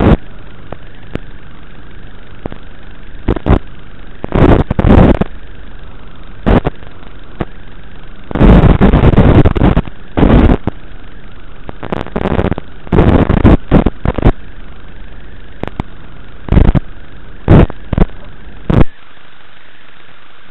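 Audio of an analog FPV drone video link: a steady hiss broken by loud, irregular bursts of noise. Near the end the bursts stop and the sound becomes flat, even static as the video signal drops out.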